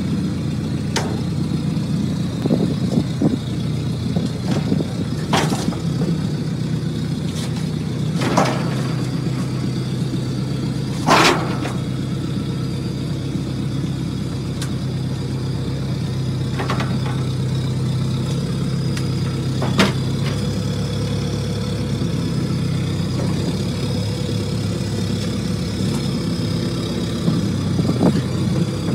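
Sherp ATV's diesel engine running steadily at low revs as the vehicle creeps its big low-pressure tire over a plate of upright steel spikes, with a few sharp clicks and knocks scattered through, the loudest about eleven seconds in.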